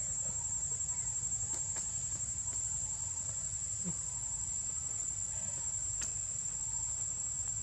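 Insects droning: one steady, high-pitched, unbroken buzz.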